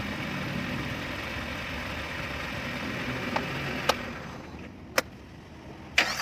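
Suzuki APV engine idling steadily, running again once the starter motor was fixed. It gets quieter about two-thirds of the way through, and three sharp clicks come about a second apart near the end.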